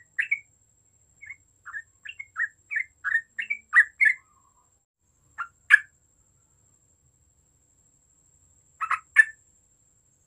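Yellow-vented bulbul (trucukan) calling: a quick run of short chirping notes, about two or three a second, over the first four seconds, then two notes a little past the middle and a quick cluster of three near the end.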